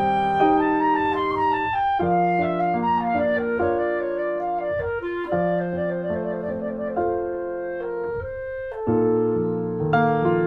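Background music: gentle instrumental with piano and a clarinet-like wind melody.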